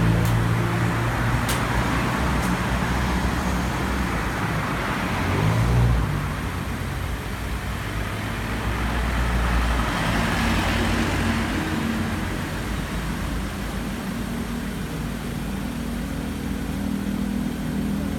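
Motor vehicle engine running steadily amid road traffic noise, the road noise swelling twice.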